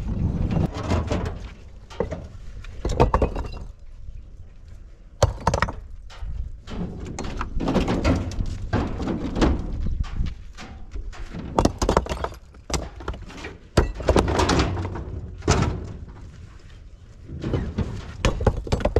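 Large rough stones being unloaded by hand from a pickup truck bed: irregular heavy thuds and stony clacks as rocks land on a stone pile and knock against each other and the truck's metal bed.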